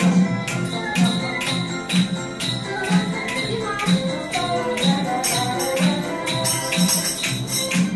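Music with a steady beat and a melody, with children's tambourines and jingle bells shaken in time.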